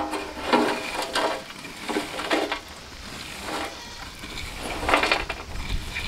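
Charcoal embers being raked and stirred with a wooden stick on a metal tray, with several short pitched calls over it, the loudest near the start and about five seconds in.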